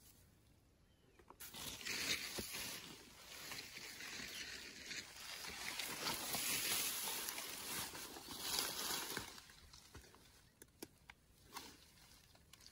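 Grass rustling as it is pushed aside and brushes against the phone. It starts about a second and a half in, runs for several seconds and dies away near the end, leaving a few faint clicks.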